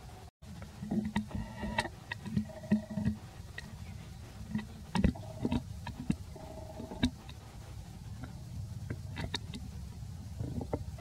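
A few short squeaky calls from young macaque monkeys, each under half a second, over a steady low rumble with scattered clicks and taps.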